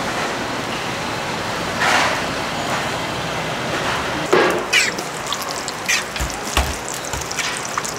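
Oil sizzling and crackling on a flat steel griddle under hotteok dough balls frying, with a few sharp clicks and knocks from about halfway.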